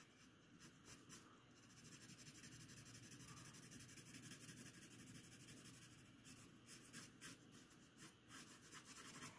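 Faint pencil shading on paper: a run of rapid, even back-and-forth strokes for a few seconds, then scattered single strokes near the end.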